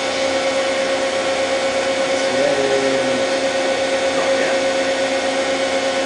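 Mazak QT18N CNC lathe running with its spindle and chuck spinning, giving a steady whine with a constant pitch.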